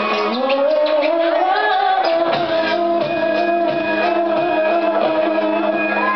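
Live band music: a woman sings one long held note, sliding up into it at the start, over electric guitar and violin.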